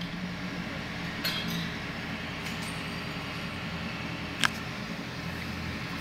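Turntable ladder fire truck's engine running steadily, with a couple of sharp metallic clinks, the loudest about four and a half seconds in.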